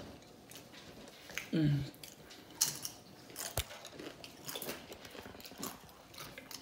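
Close-up chewing of a burrito: wet mouth smacks and scattered clicks. About a second and a half in there is one brief pitched vocal sound, like a short hum.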